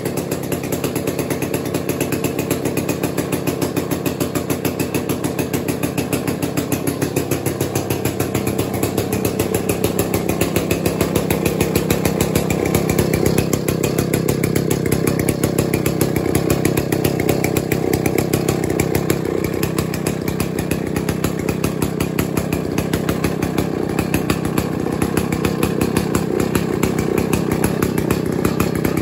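Stihl 090 vintage 137cc two-stroke chainsaw engine running steadily, getting a little louder about eight seconds in.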